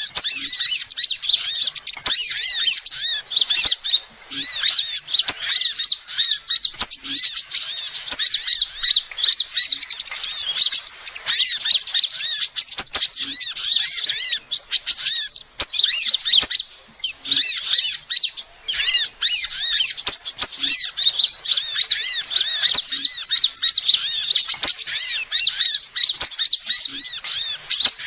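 Female sunbird calling: a dense, rapid stream of high, thin chirps with quick up-and-down sweeps in pitch, nearly unbroken apart from a few brief pauses. It is a lure call used to attract small birds.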